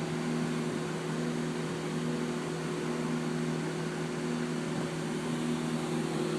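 Lakewood 200i 20-inch box fan running, its McMillan motor humming steadily under the rush of air from the blades; one hum tone pulses in a slow, even beat. The fan runs smoothly despite heavy dust on its blades and grilles.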